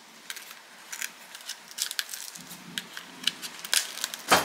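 Scissors snipping the gills out of a raw Australian red lobster: a run of short, irregular snips and clicks, with a louder clack near the end.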